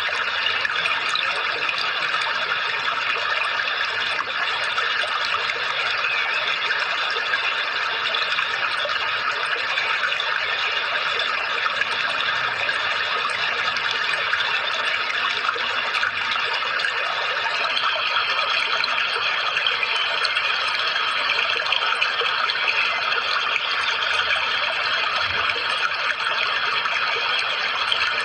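Running water, a steady even trickling and splashing, with a faint steady high tone underneath.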